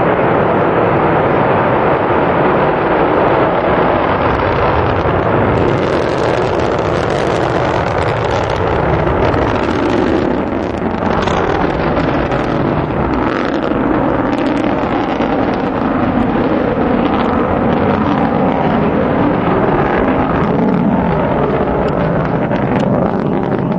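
Delta II rocket's main engine and solid rocket boosters in the ascent just after liftoff: a loud, steady rumble that takes on an irregular crackle about five seconds in.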